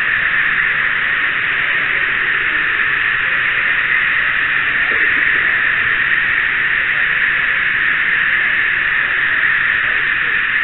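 Steady, even whirring hiss of a model train rolling along the track, picked up close by a small camera riding aboard the train.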